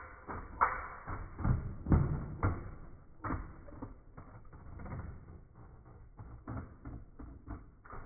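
Plastic packaging and toy parts being handled: irregular clicks, taps and rustles, busiest in the first few seconds and sparser after.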